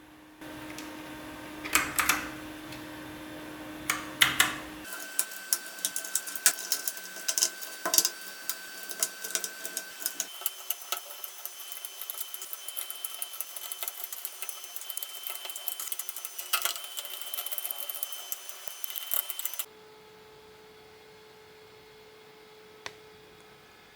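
Typing on a Gamakay LK67 mechanical keyboard with Kailh Box switches: a fast, irregular run of keystroke clicks and clacks. It stops about 20 seconds in, leaving a faint hum with one more key click near the end.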